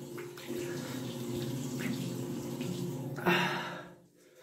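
Tap water running and splashing as a face is rinsed by hand, with a louder splash about three seconds in, after which the water sound stops.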